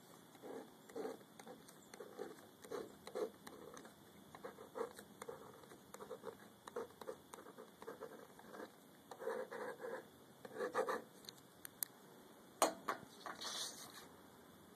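Gel pen writing on waterproof paper over a notepad: a quick, irregular run of short pen strokes. Near the end there is a sharp click and a louder rustle as the sheet is handled.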